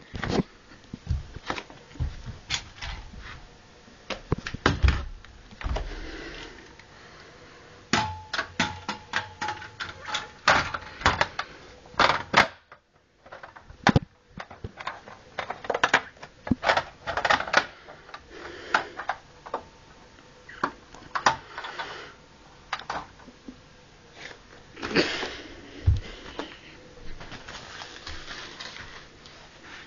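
A run of irregular sharp clicks and knocks, some in quick clusters, with a brief quiet gap a little before halfway.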